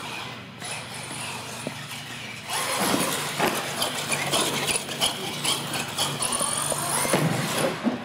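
Radio-controlled monster truck driving and turning hard on a smooth concrete floor, its tyres squealing and scrubbing. It gets louder from about two and a half seconds in.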